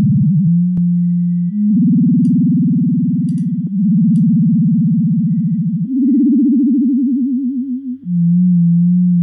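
Native Instruments FM8 software synthesizer playing a low sine tone in held notes of about two seconds each. Its pitch is wobbled by a second modulating operator. As the modulator's rate is turned down, the wobble slows from a fast, gritty frequency-modulation sound into a slow vibrato by the last note.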